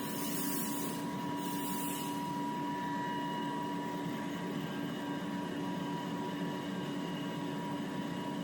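Factory paper-converting machinery running with a steady hum and a fixed whine, plausibly the automatic jumbo-roll hand towel band saw cutting machine; two short hisses sound in the first two seconds.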